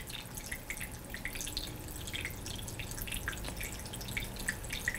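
Decorative barrel-style tabletop water fountain trickling: many small, irregular drips and splashes of water falling from the spout into the tiers.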